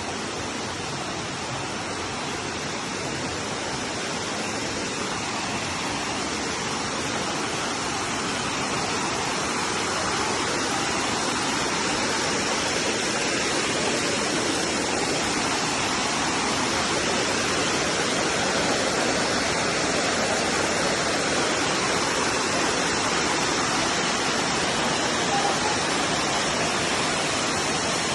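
Waterfall rushing: a steady, dense roar of falling water that grows a little louder over the first several seconds.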